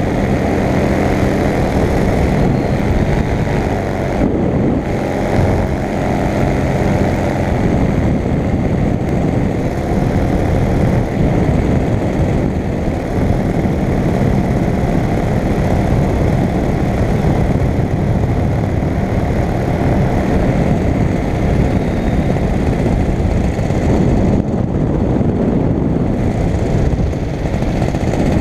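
Paramotor engine and propeller running steadily at cruise in flight, a loud continuous engine drone with airflow noise.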